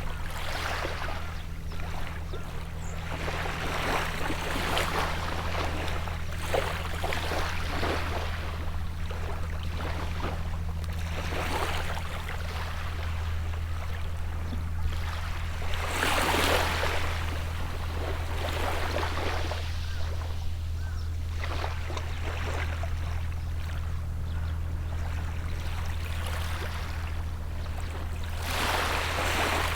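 Sea waves washing onto the shore in surges every few seconds, the biggest about halfway through and near the end. Under them runs a steady low drone from a distant boat engine.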